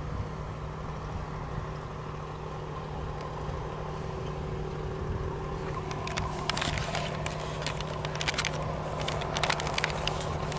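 Tasmanian X-class diesel locomotive running steadily while shunting, a constant engine drone. From about six seconds in, irregular sharp clicks and crackles sound over it.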